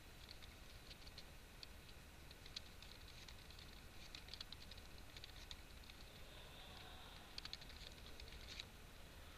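Faint computer keyboard typing: light key clicks at an irregular pace, bunched into short runs, over a low steady hum.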